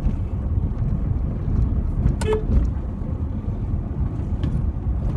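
Steady low rumble of a car running, heard inside its closed cabin, with one brief pitched toot about two seconds in.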